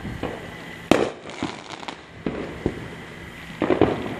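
Consumer fireworks going off: a string of sharp bangs and pops at uneven intervals, the loudest about a second in and a quick cluster of them near the end.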